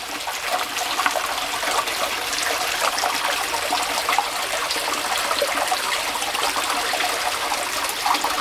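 Small rocky creek running over stones and a low cascade: a steady trickling and splashing of water.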